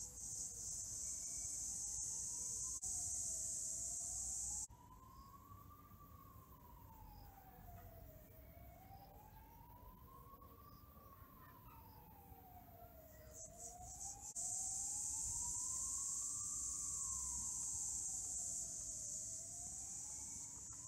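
A steady tone slowly wavering up and down in pitch, one rise and fall about every five seconds, like a slow siren. A loud high hiss sits over it for the first four or five seconds and comes back about two-thirds of the way through.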